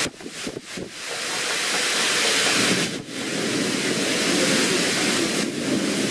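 Torrential thunderstorm rain pouring down in strong wind gusts, a loud steady rushing hiss. It drops away briefly a few times in the first second and once about three seconds in.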